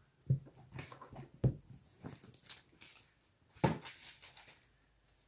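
A thick 2,559-page Bible being handled and turned over to show its cover: three dull knocks, the last the loudest, with soft rustling and brushing between.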